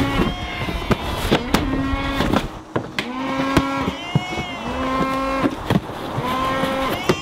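Cattle mooing repeatedly, about five short calls steady in pitch, with sharp knocks and clatter between them over a low rumble.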